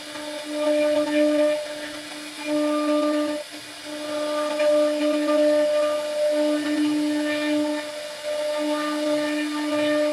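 CNC router spindle running with a steady high whine while its bit carves a floral relief into a wooden strip, the sound swelling and dipping as the bit cuts.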